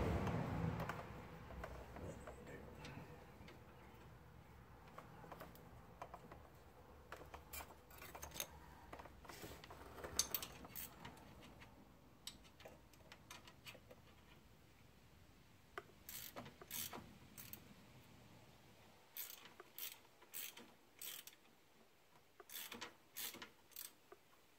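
Scattered light metallic clicks and ticks in small irregular clusters as a hand works a new steel brake line into place along the car's underbody.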